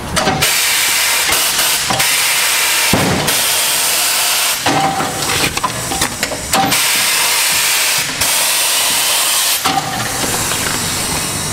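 Compressed air hissing loudly in repeated bursts of one to two seconds, each starting and stopping sharply, from a pneumatic tire-changing machine while an old tire is worked off its wheel.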